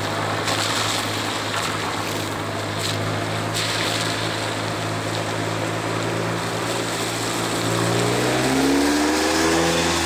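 Peugeot 306 GTI-6's four-cylinder engine running at low, steady revs as the car rolls slowly up. About eight seconds in the engine note rises in pitch as it accelerates.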